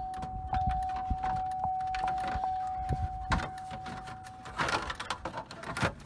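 Plastic steering-column trim cover being worked back into place around the column, with light clicks, a few knocks and a plastic rattle near the end. A steady high electronic tone runs underneath and stops about three-quarters of the way through.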